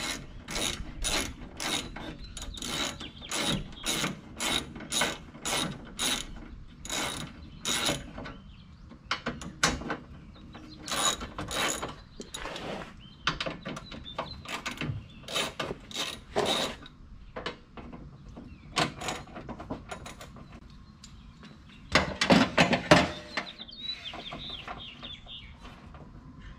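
3/8-inch-drive socket ratchet with an 8 mm socket clicking as it is worked back and forth, undoing the bolts of a pop-up headlight assembly. It clicks in steady strokes, about two a second, then in shorter bursts with pauses, with a louder quick burst near the end.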